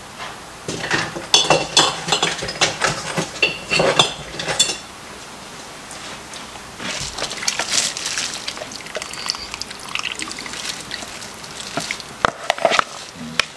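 A metal serving spoon scooping cooked vegetables and broth out of a slow cooker into a plastic bowl: liquid sloshing and dripping, with clinks and scrapes of the utensil. The clinks are busiest in the first few seconds.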